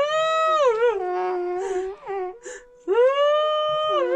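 Long, high wailing cries, several in a row, each held for a second or two and falling away at the end, often two at once at different pitches.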